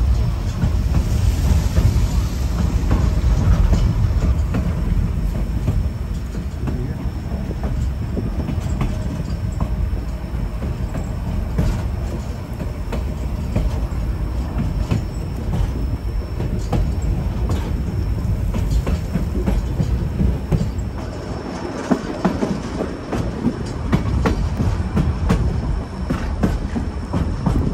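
White Pass & Yukon Route narrow-gauge passenger train rolling along the track: a steady low rumble with the clicking of wheels over rail joints.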